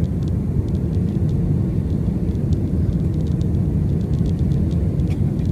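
Airbus A320-family airliner's cabin noise on descent with flaps extended: a steady low rumble of engines and airflow heard from a window seat over the wing, with faint scattered ticks.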